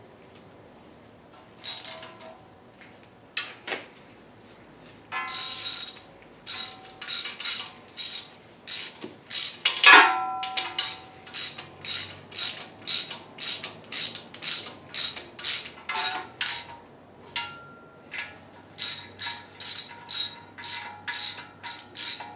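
Hand socket ratchet turning nuts down on an engine block: repeated ratcheting strokes about two a second, pausing now and then, with one louder metal clank about ten seconds in.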